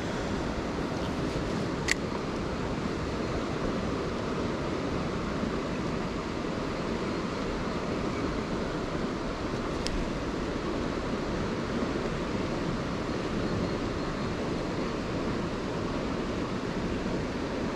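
Steady rushing of a flowing river, an even noise with no rhythm, broken by two sharp single clicks about two seconds in and again about ten seconds in.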